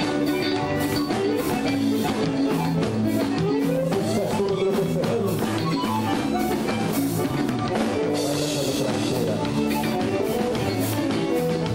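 Live gaúcho dance music from a band: piano accordion carrying the melody over a steady drum-kit beat, with electric bass and guitar.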